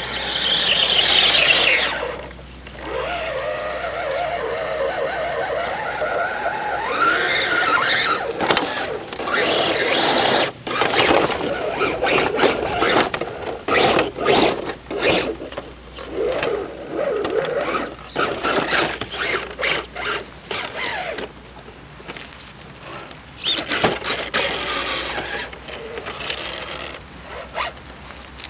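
Radio-controlled Axial Jeep crawler's electric motor and drivetrain whining as it revs up and down, pitch rising as it speeds up. Its tyres and body knock and scrape against the rock many times, most thickly in the middle.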